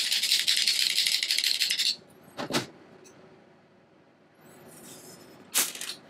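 Steel screwdriver shaft rattling rapidly in the slot of a plastic magnetizer/demagnetizer block as it is demagnetized, for about two seconds. Then two single clicks, one about halfway through and one near the end.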